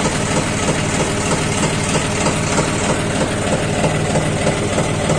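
John Deere 5310 tractor's three-cylinder diesel engine idling steadily at about 850 rpm.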